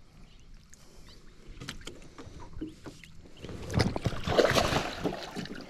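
Scattered light knocks and clicks, then about three and a half seconds in, nearly two seconds of loud splashing and thrashing with heavy thumps: a hooked barramundi fighting at the side of a small aluminium boat as it is brought in.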